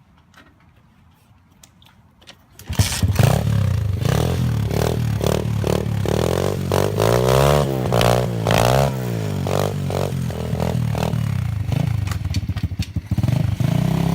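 A small gasoline engine starts suddenly about three seconds in and runs loud, revving up and down several times in the middle.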